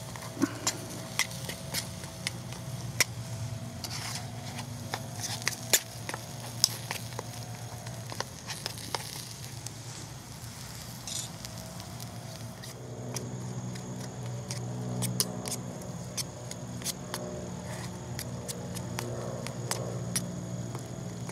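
Ground beef sizzling in a small frying pan over a wood-burning camp stove, with frequent sharp pops and crackles. A metal utensil stirs the meat at times.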